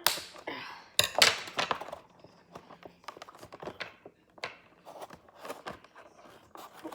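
Toy packaging being handled and worked open: two loud knocks with rustling in the first two seconds, then a string of lighter clicks and taps.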